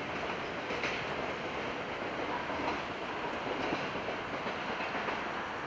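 Freight train's container wagons rolling over the rails as the rear of the train passes and moves away: a steady rumble of wheels on track with a few faint clicks.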